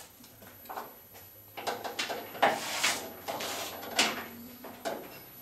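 Hand tools and loose metal parts clanking and scraping against the truck's sheet-metal front end while it is being unbolted: a run of sharp knocks, the loudest about two and a half and four seconds in.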